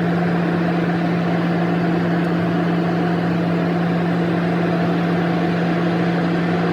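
Steady engine and cabin noise of a jet airliner: a loud, unchanging noise with a strong low hum.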